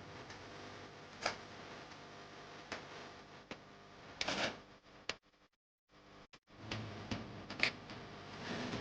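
Scattered light clicks and taps of hand tools and small parts being handled on a workbench during a chainsaw teardown, over a steady low background hum. The sound cuts out almost completely for a moment a little past halfway.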